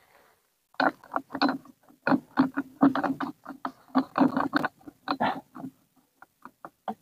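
Metal airgun silencer being screwed by hand onto the barrel of a PCP air rifle: a run of short scraping clicks, a few a second, thinning to faint ticks near the end.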